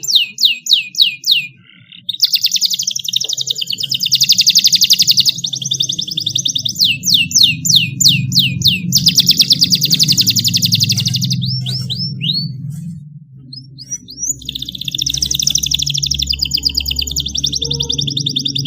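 A domestic canary singing loudly, alternating series of quick downward-sweeping whistled notes with long fast rolling trills, with short breaks about 1.5 s in and around 13 s. A low steady hum runs underneath.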